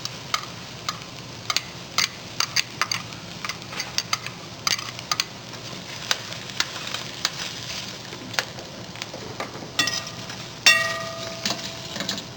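Onions and garlic sizzling in a dry Saladmaster pan with no oil, with a utensil scraping and clicking against the pan as they are stirred. About ten seconds in come two ringing metal clanks, the second the loudest.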